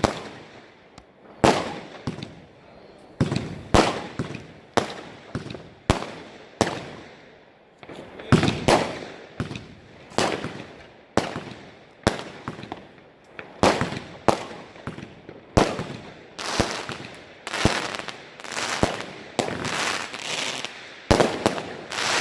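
Consumer fireworks battery firing a long series of bangs, about one to two a second, each trailed by a crackling hiss. The shots come closer together in the last few seconds.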